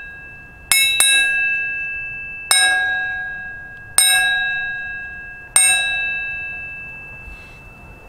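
Iron Craft Iron Plate Mini thin iron frying pan struck five times, each strike ringing like a bell with clear tones that fade over a second or two. Two of the strikes come close together about a second in.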